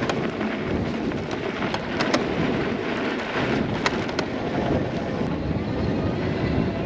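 Steady rushing noise of an off-road ride, with wind buffeting the microphone over tyre-on-dirt noise and a few sharp clicks.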